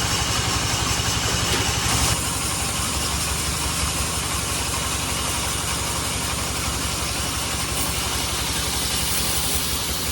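Sawmill band saw running with a steady engine drone, its tone shifting slightly about two seconds in.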